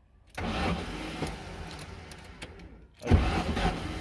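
Car's starter motor cranking the engine for about two and a half seconds, stopping briefly, then cranking again more loudly, while the ignition timing of a newly fitted Splitronic electronic ignition is being set.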